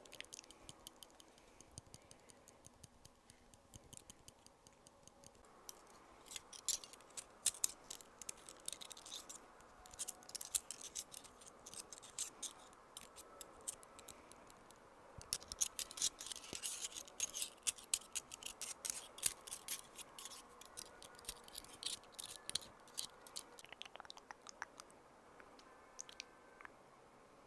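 ASMR trigger sounds close to the microphone: a rapid run of crisp clicks and scratches, busier for a few seconds about a quarter of the way in and again around the middle.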